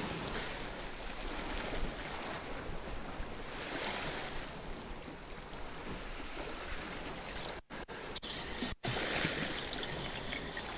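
Sea waves washing on the shore: a steady rushing noise that swells now and then, with a little wind. The sound drops out very briefly a couple of times about three-quarters of the way in.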